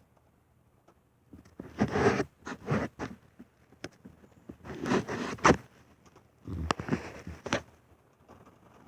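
Snoring: three raspy snores, each about a second long, spaced roughly two and a half seconds apart.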